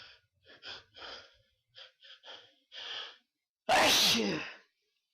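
A person's quick, sharp in-breaths building up to a sneeze, then one loud sneeze about three and a half seconds in, part of a long sneezing fit.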